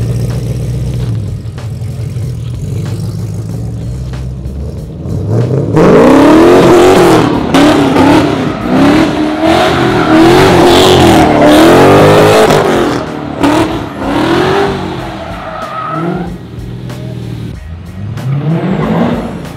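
Swapped LS3 6.2-litre V8 in a BMW E36 drift car running low, then revving hard about six seconds in, its revs rising and falling for several seconds while the rear tyres squeal in a slide. Shorter rev bursts follow near the end.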